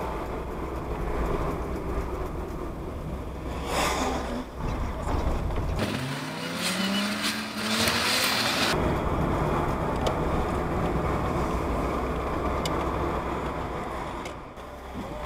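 A car driving through town, heard from inside its cabin: a steady engine and road rumble, with the engine rising in pitch as it accelerates about six seconds in, and a louder hiss for a few seconds around then.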